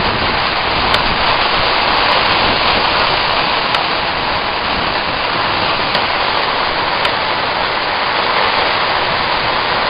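Rain falling steadily and densely onto wet streets and roofs in a storm, a constant even hiss with no break.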